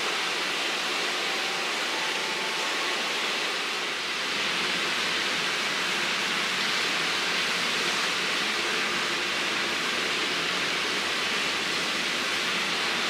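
A steady, even rushing noise that barely changes, rising a little about four seconds in.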